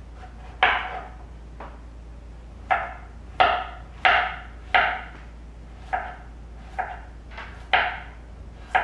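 Kitchen knife slicing through a zucchini and striking the cutting board, about ten separate cuts at an uneven pace, each a short sharp knock.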